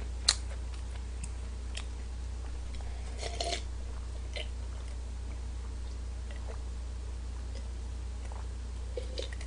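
A man drinking wine from a glass in long sips, with a few faint swallowing sounds and small clicks over a steady low hum.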